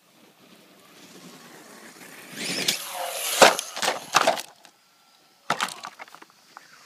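Traxxas Rustler RC car coming closer at speed, then crashing and tumbling with a cluster of hard knocks about three and a half to four seconds in, before coming to rest upside down. A few lighter clicks follow a little later.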